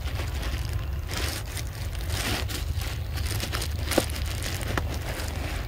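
Steady low wind rumble on the microphone, with irregular close crackling and crunching noises and a sharp click about four seconds in.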